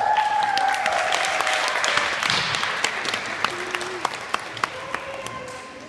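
Audience applauding, with a high cheer at the start. The clapping thins out and fades toward the end.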